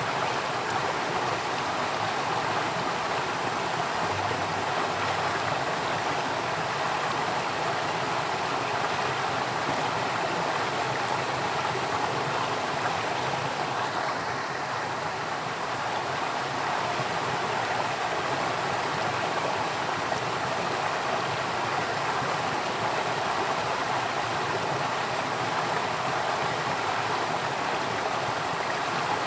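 Water flowing, a steady, unbroken rush like a stream.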